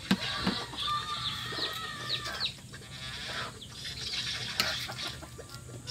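Backyard chickens clucking, with short high chirps repeating, and a couple of sharp clicks, one right at the start and one about four and a half seconds in.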